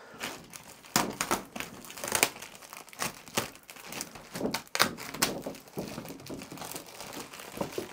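Clear plastic wrap crinkling and rustling as it is handled and pulled off a large cardboard box, in irregular crackles.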